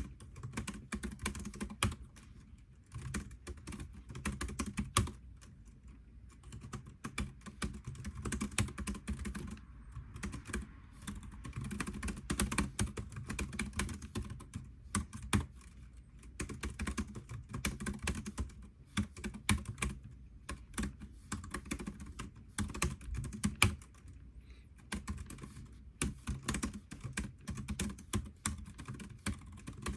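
Typing on a computer keyboard: quick runs of key clicks broken by short pauses of a second or so.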